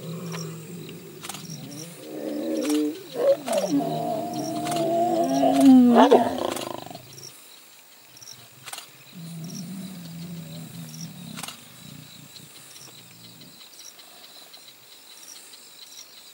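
Male lions growling at close range. The growl swells into a loud, rising snarl about three to six seconds in and breaks off near seven seconds. A lower, quieter growl follows a few seconds later.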